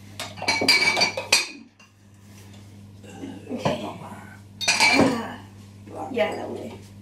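Bowls and kitchenware clattering and clinking in several short bursts as someone rummages through a lower kitchen cupboard, over a low steady hum.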